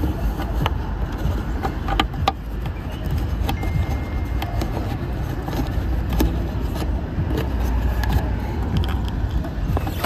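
Scattered small clicks and taps of a screw being turned by hand into a plastic tail-light housing, over a steady low rumble.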